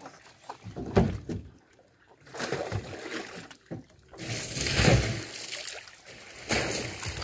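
Live freshwater fish, crucian carp among them, flopping and slapping against each other and the sides of plastic fish crates: irregular wet slaps and knocks, with a rushing noise for about a second past the middle.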